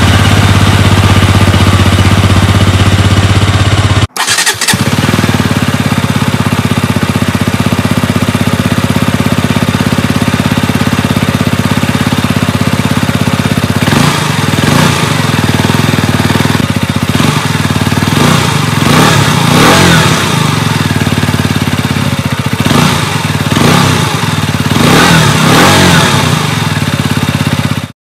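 KTM Duke 125's single-cylinder four-stroke engine idling, with a brief break about four seconds in. In the second half it is revved in a series of short throttle blips, each rising and falling, and it cuts off just before the end.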